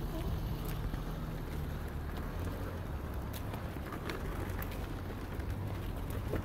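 Steady low rumble and hiss of outdoor street noise, with a few faint clicks scattered through it.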